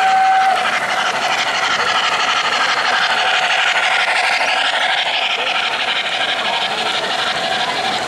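O-gauge model steam locomotive passing: a steady whistle from its onboard sound system cuts off about half a second in. It is followed by steady steam-chuff and hiss sound effects mixed with the rolling noise of the train on three-rail track.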